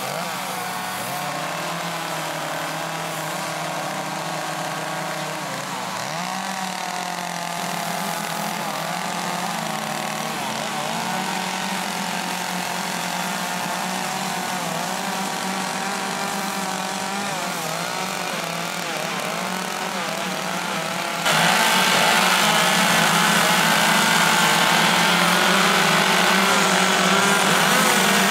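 Several chainsaws fitted with carving bars running at once, their engines revving up and down as they cut into wood. The sound jumps suddenly louder about three-quarters of the way through.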